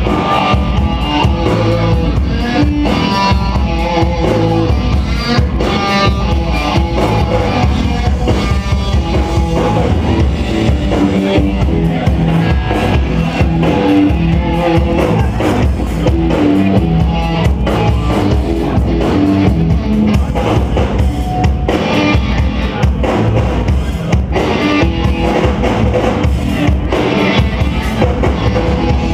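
Rock band playing live with drum kit and electric guitar, loud and without a break.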